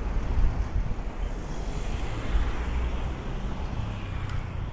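City street traffic: the hiss of a car passing, over an irregular low rumble of wind buffeting the microphone.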